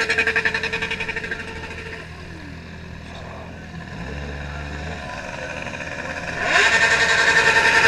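Motorcycle engine revved hard and held at high rpm for a sound-level meter reading, dropping back to idle about two seconds in, then revved up and held high again near the end.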